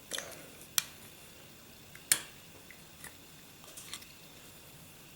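Sharp clicks and knocks of the Norinco 213 pistol's stripped frame and grip panel being handled on a work surface. There is a small cluster at the start, a single click just under a second in, the loudest knock a little after two seconds, and a few fainter taps later.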